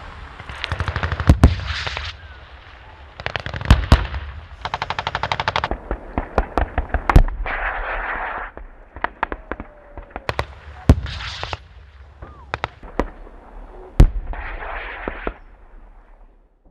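Automatic gunfire in rapid bursts, several runs of fast shots one after another, with single sharp shots between them; the loudest single shots come about seven and fourteen seconds in.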